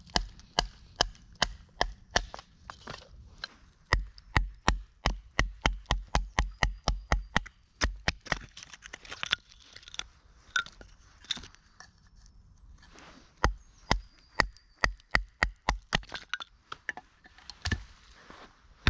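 Wooden baton striking the spine of a large fixed-blade knife, driving it through dead ash sticks to split kindling: runs of sharp knocks about two to three a second, with a pause in the middle while split pieces are handled.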